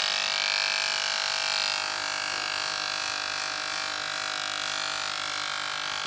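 Cheap electric hair clipper running with a steady buzz while cutting hair, dipping a little in level about two seconds in.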